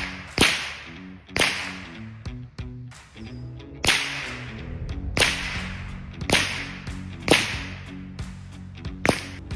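A .22 rifle firing at balloons, one sharp crack with a short fading tail about every second.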